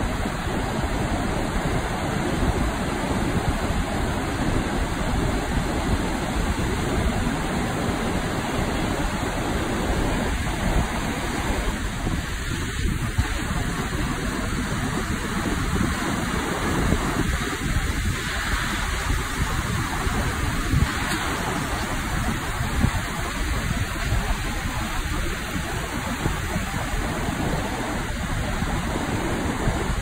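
Sea surf on a flat sandy beach: waves breaking offshore and shallow wash hissing in over the sand, with a louder wash for a moment about halfway through. Wind buffets the microphone, adding a gusty low rumble.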